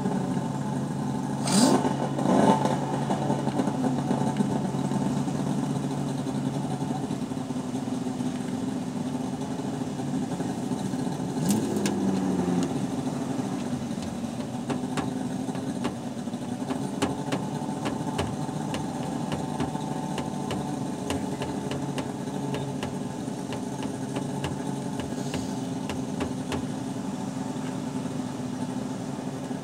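A vehicle engine idling steadily, heard from inside the cab. Two brief loud noises come about two seconds in, and faint clicks come later.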